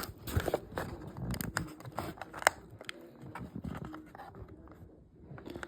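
Diecast toy packaging being handled and worked open: scattered small clicks and taps of plastic and cardboard, with a sharper click about two and a half seconds in.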